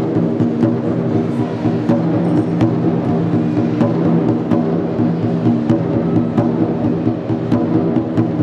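Large Chinese barrel drum (tanggu) struck with sticks in rapid, continuous strokes, the drum's deep ringing tone sustained under the hits, with sharp clicks among them.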